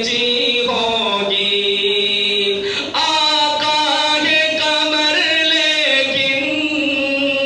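A man singing a naat unaccompanied, stretching the words into long held notes with slow pitch bends. About three seconds in, one phrase breaks off and a new, slightly higher one begins.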